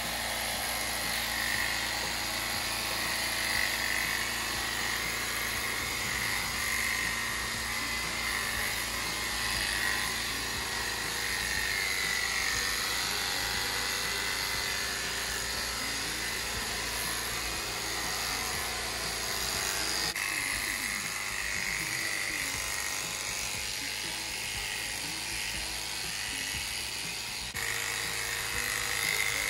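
Corded electric horse clippers running steadily as they cut through the coat on a horse's head: a continuous motor buzz with a high whine.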